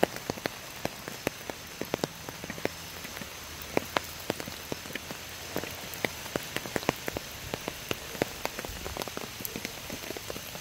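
Steady rain falling, a soft even hiss with many sharp, irregular taps of single drops landing close by, several a second.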